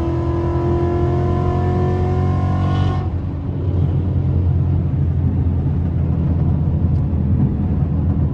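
Ford Mustang V8 engine and exhaust heard from inside the cabin under hard acceleration, its pitch rising steadily. About three seconds in the sound changes abruptly to a deep, loud, steady rumble.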